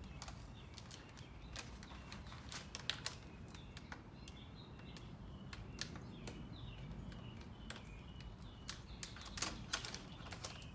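Scattered light clicks and taps of fingers and vinyl transfer tape against a vending machine's front panel as pink vinyl lettering is worked into place, with faint bird chirps in the background.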